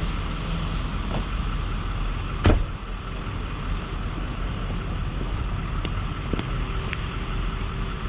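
A diesel pickup engine running at low speed as the truck is eased onto a car-hauler trailer, with a sharp clunk about two and a half seconds in and a few lighter clicks.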